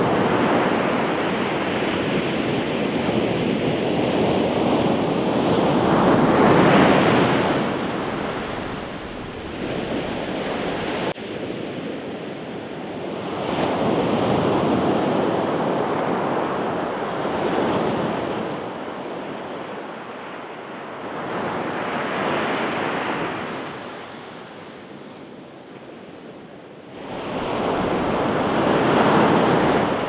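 Pacific Ocean surf breaking on a beach. The waves come in as repeated surges of rushing water every several seconds, each swelling and then fading back. The loudest surges come at the start and near the end.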